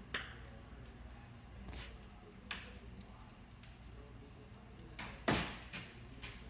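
Ceramic floor tiles popping: a series of short, sharp cracks every second or two, the loudest about five seconds in. It is the sound of a tiled floor coming loose and starting to buckle.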